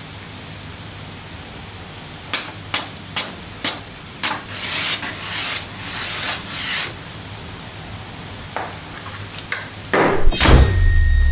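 Handling of a knife's packaging: four sharp clicks about half a second apart, then a few seconds of rubbing and sliding, and a few light clicks. Near the end, a loud whoosh falls in pitch into a deep rumble.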